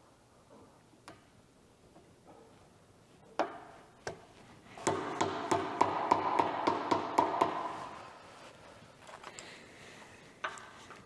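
Hammer tapping a new U-joint bearing cap into a driveshaft yoke held in a bench vise: two single strikes, then a quick run of ringing metal taps, about four or five a second, for a few seconds in the middle.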